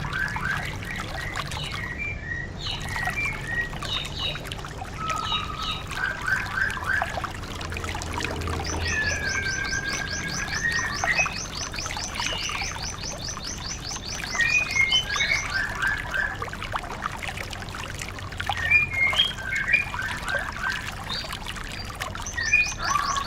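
Songbirds singing: a run of short whistled phrases and chirps, with a fast, even trill of high ticks from about a third of the way in until about two-thirds through.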